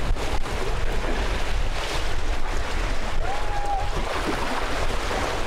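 Wind buffeting the microphone over water rushing along a sailboat's hull, under sail with no engine running. A short, high-pitched held call comes about three seconds in.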